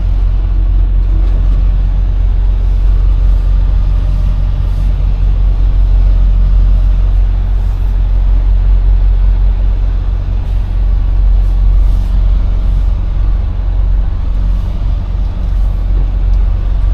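Semi truck's diesel engine running steadily while under way, heard from inside the cab as a deep, even rumble.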